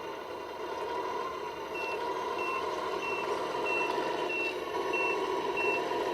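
Reversing beeper of an RC construction truck, seven short beeps at one high pitch about one and a half a second, starting about two seconds in, over a steady mechanical whir.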